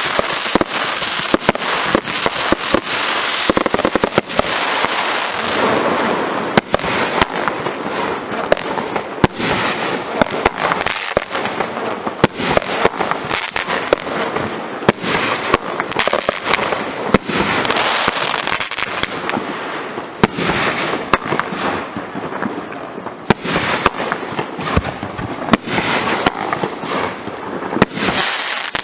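Fireworks firing in quick succession: a continuous run of sharp bangs and cracks over a steady hiss, with no break in between.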